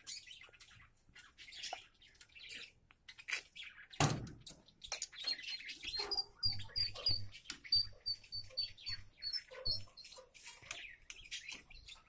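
Caged budgerigars and cockatiels chirping and chattering in short calls, with a quick run of high, clear chirps midway. A single dull knock comes about four seconds in.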